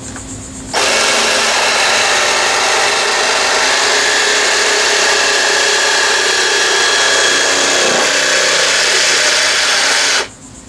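Handheld power saw cutting a plastic sheet. It starts about a second in, runs steadily, and stops near the end.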